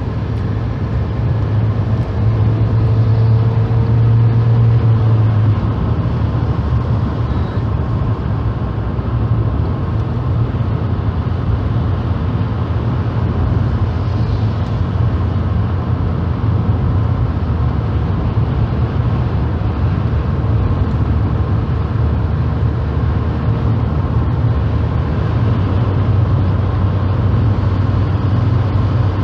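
Steady engine drone and tyre-on-road noise heard from inside a moving car's cabin, a little louder for a few seconds near the start.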